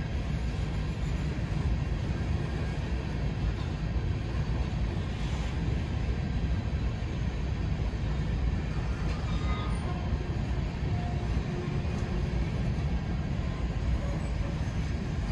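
Freight train of covered hopper cars rolling past, a steady low rumble of steel wheels on the rails.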